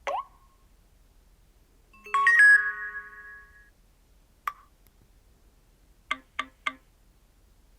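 Short electronic tones from a Nokia C2-01 phone's speaker, played one after another: a quick rising blip, a bright chime of a few notes ringing for about a second and a half, a single short blip, then three quick beeps.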